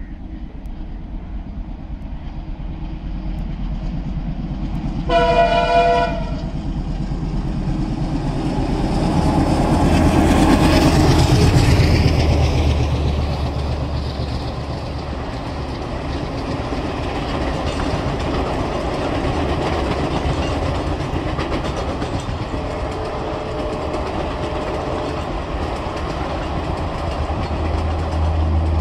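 Indian Railways diesel locomotive sounding one horn blast of about a second as it approaches, then rumbling past close by. After it comes the steady rumble and clatter of passenger coaches rolling over the rails.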